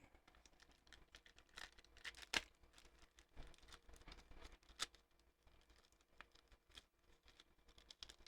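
Faint rustling and light taps of paper cards and packaging being handled, in scattered short bursts, with a few sharper ticks about two and five seconds in.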